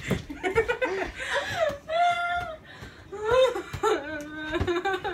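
People laughing and squealing without words as they bat an inflatable beach ball, with a couple of sharp slaps of hands on the ball, one near the start and one near the end.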